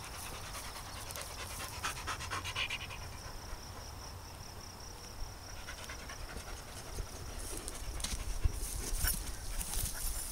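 A dog panting quickly in short spells, with grass rustling underfoot toward the end.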